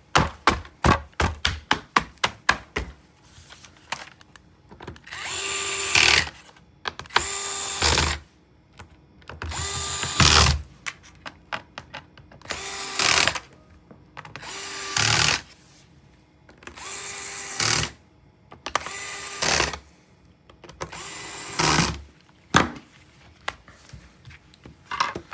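Plastic laptop back cover clicking into place with a quick run of snaps, then an electric screwdriver driving the cover screws in about eight short runs of a second or so each.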